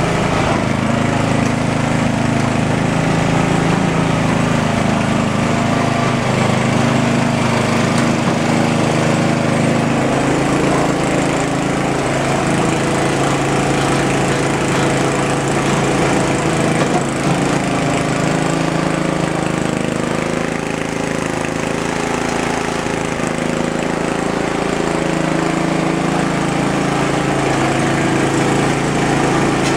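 Vintage Ariens Sno-Thro snowblower with a 5-horsepower Tecumseh Snow King engine, running steadily under load while clearing snow. Its engine note wavers slightly as the load changes.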